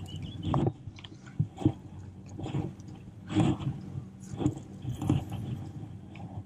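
A small bass flopping on grass and being grabbed by hand: a run of irregular soft thumps and rustles.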